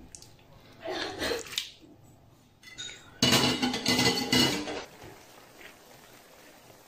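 Clatter of a frying pan and cooking utensils on the stove, in two bursts: a shorter one about a second in and a louder one starting sharply about three seconds in and lasting about a second and a half.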